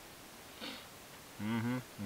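A man's short pleased "mmm" of enjoyment as he eats a honey-topped toasted bagel, about a second and a half in, after a quick sniff-like breath through the nose.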